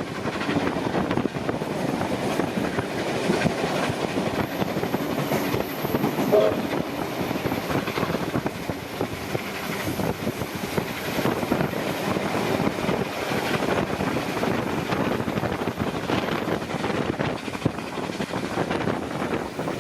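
Steam-hauled passenger train running along the line: a steady rushing noise with frequent clicks of the wheels over the rails, and a short higher tone about six seconds in.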